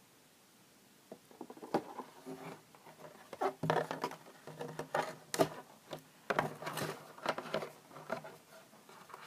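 Irregular tapping, knocking and rustling of small plastic toy figures being handled and set down on a tabletop close to the microphone, starting about a second in.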